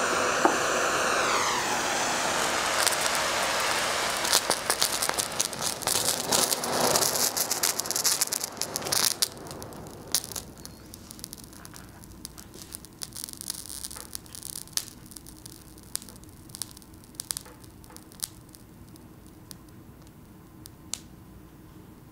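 Magnesium turnings burning in a block of dry ice. A steady hiss gives way about four seconds in to dense crackling and popping, which thins after about ten seconds to scattered crackles that grow fainter.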